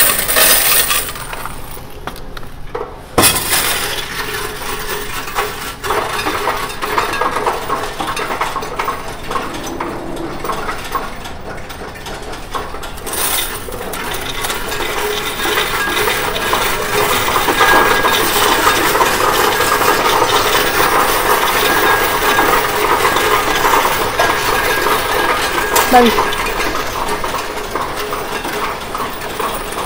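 Loose coins clattering and clinking in a Coinstar coin-counting machine's tray as they are poured in and pushed into the slot. The jingling rattle is continuous, with a sudden louder crash about three seconds in.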